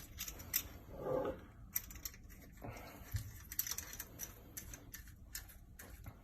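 Light, irregular clicks and taps of plastic fittings being handled as the washing machine's water intake hose is pushed onto the faucet adapter.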